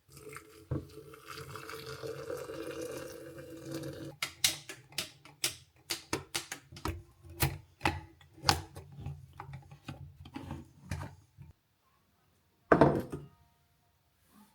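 Kitchen sounds: about four seconds of steady running water, then a quick string of sharp clinks and knocks of crockery and utensils, and one louder knock near the end.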